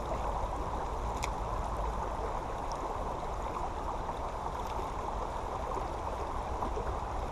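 Creek water running steadily over rocks, an even rushing babble, with one faint click about a second in.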